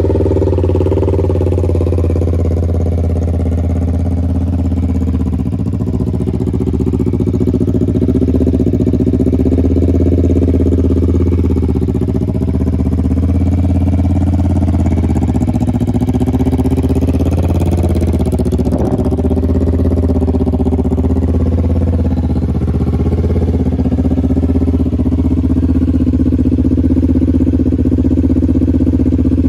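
Kawasaki Ninja 400's parallel-twin engine idling steadily through an M4 Racing full exhaust, cold, just after starting.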